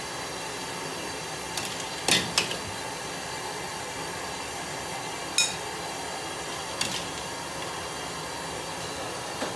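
Metal ladle clinking and knocking against a large steel wok of boiling water, a handful of short sharp hits, the loudest two close together about two seconds in. Under it runs a steady hiss from the steaming wok and the gas burners.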